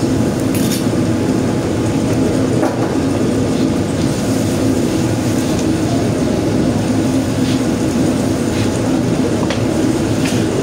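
Steady loud roar of a commercial kitchen's ventilation and machinery, with a constant low hum and a few faint clinks.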